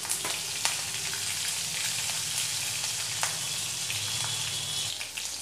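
Chopped green chillies frying in hot oil with mustard seeds and cumin in a steel kadai: a steady sizzling hiss with a few sharp crackles.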